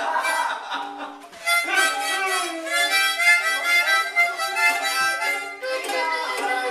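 A harmonica playing a run of held chords, with short breaks about a second in and again near the end.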